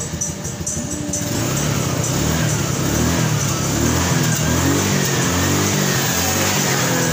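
Suzuki scooter's small single-cylinder engine running and being revved up and down on the throttle, with no sputter.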